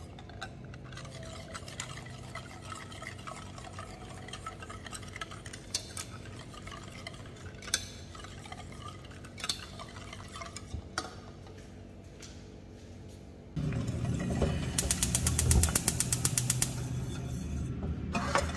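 Wire whisk beating a thin chocolate custard (vla) mixture in a stainless steel saucepan: a wet sloshing with now and then a sharp clink of the whisk against the pan. About two-thirds in it suddenly turns louder, with a quick run of rapid whisk strokes, about eight a second.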